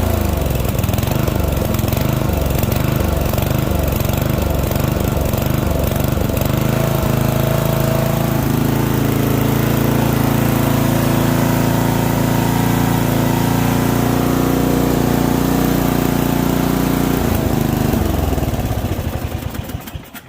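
12.5 hp Briggs & Stratton engine of an MTD Yard Machine ride-on mower running, its speed wavering up and down at first, then settling into a steady run; it is shut off and dies away near the end. The uneven speed is the engine hunting.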